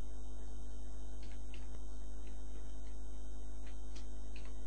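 Steady electrical mains hum with a few faint clicks.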